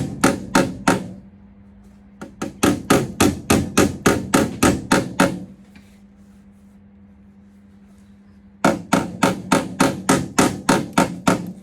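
Hammer beating a steel repair panel on a rusty classic VW Caddy body to fit, in three quick runs of about four sharp blows a second.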